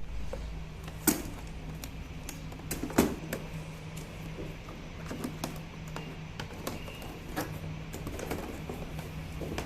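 Scattered light clicks and knocks of plastic scooter fairing panels and screws being fitted by hand, the two loudest knocks about one and three seconds in, over a steady low hum.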